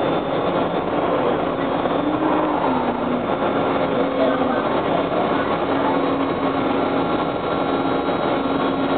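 Ride noise inside a Breda 4000-series Metrorail car under way: steady rolling noise of wheels on rail with a humming tone from the Westinghouse DC traction motors and gearing, which dips briefly in pitch about two and a half seconds in and then holds steady.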